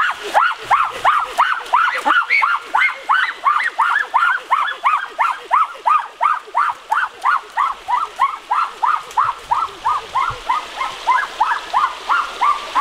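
An animal calling in a long, very regular series of short yelps, about three a second, each rising and falling quickly in pitch.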